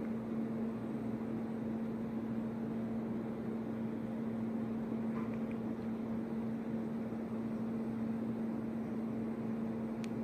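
A steady mechanical hum with a single low tone over an even hiss, unchanging throughout.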